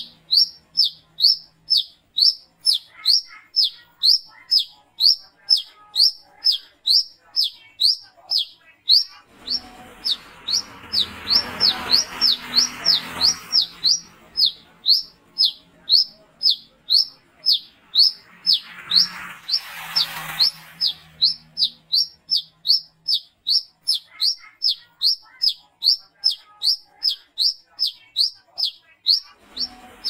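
Male brown-throated sunbird (wiceh) calling without a break: a fast, even run of short, sharp, high notes, each slurring downward, about two and a half a second. Twice a rushing noise swells behind the calls for a few seconds.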